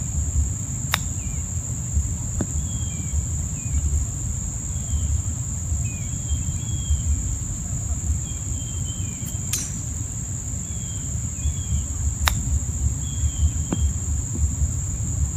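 A steady high-pitched insect drone, with short bird chirps. There are three sharp clicks of a chipping club striking a golf ball, one about a second in and two more in the second half.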